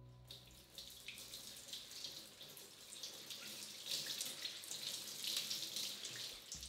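Kitchen faucet running into a stainless steel sink as a bunch of garlic chives is rinsed under the stream, the water splashing unevenly off the leaves.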